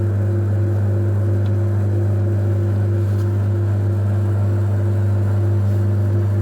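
Metal lathe running at a steady speed with a piston spinning in its 4-jaw chuck: a constant low hum with steady whirring tones above it. The cutting tool has just been backed out of the finished bowl cut, so the lathe is spinning rather than cutting.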